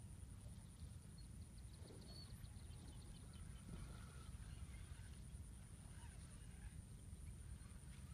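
Near silence: outdoor ambience with a low rumble of wind on the microphone and a faint steady high-pitched whine, with a brief run of faint rapid ticks about a second in.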